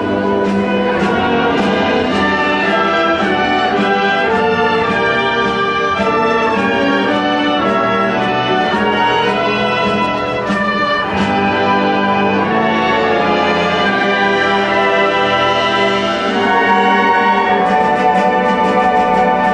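Band music with brass to the fore: many sustained, pitched notes moving in chords at a steady, loud level.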